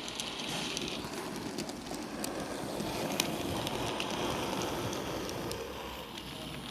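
A small OO9 narrow-gauge model train running along the layout's track: a steady whirring rattle of wheels and motor, with scattered sharp clicks.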